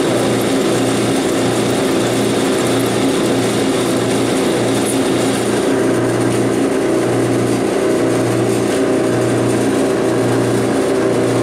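Clausing 5914 lathe converted to CNC running a test cut, its motors making a steady mechanical noise with a low hum that pulses about once a second.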